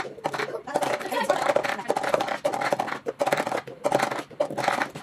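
Clear plastic cups repeatedly tapped and flipped on a wooden tabletop, making rapid irregular clacks and knocks, with voices in the room.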